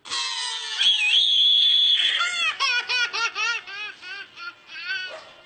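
A toddler screams, a long high cry held for about two seconds, then breaks into quick repeated wailing sobs, frightened by twisting balloons.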